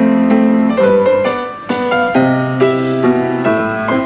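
Piano being played: a light piece in 3/4 waltz time, with struck chords and a melody ringing over a bass line.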